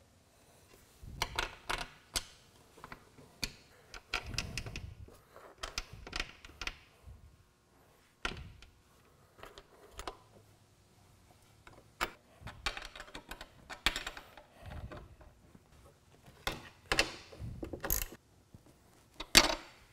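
Small metal hardware clicking and clinking as carriage bolts, washers and nuts are fitted through rubber mud flaps onto an aluminum hitch-mount frame and snugged by hand. Irregular short clicks and knocks, some in quick runs.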